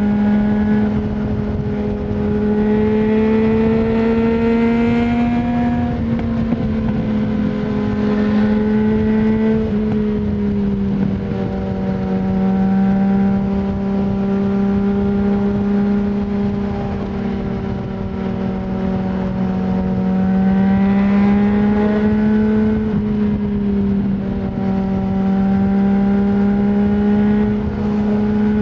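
2020 Yamaha MT-09's three-cylinder engine running through an Akrapovic full exhaust system with no dB killer. A steady engine note rises gently under throttle a few seconds in and again about two-thirds through, easing back between.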